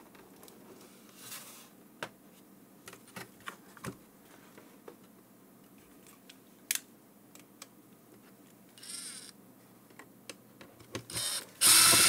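Screws being worked out of an HME drive-thru intercom base station's case: scattered small clicks and ratcheting from the screwdriver and the handling of the unit, with a louder noisy burst about a second long near the end.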